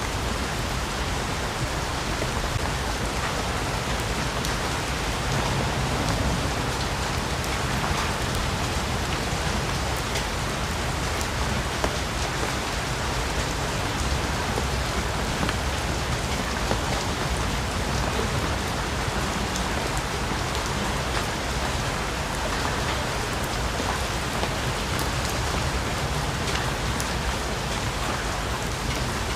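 Steady heavy rain falling on rainforest foliage, an even hiss with many small scattered drop ticks throughout.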